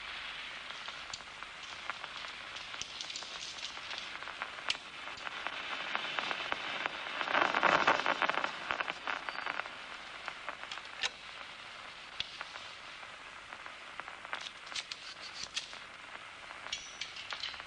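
Amplified nerve recording from a locust's DCMD neurone played through a loudspeaker: a steady hiss with scattered clicks, swelling into a dense crackling burst of action-potential spikes about seven to nine seconds in. The burst is the neurone's response as the 10-degree target disc passes across the eye.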